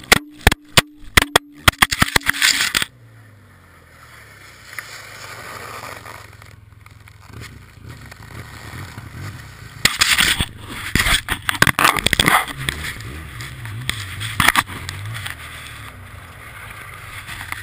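Action camera tumbling across the ice, a quick run of hard knocks for the first three seconds. Then a side-by-side's engine idling while the camera lies on the ice, with loud crunching and scraping about ten to twelve seconds in and another knock near the end as the camera is handled.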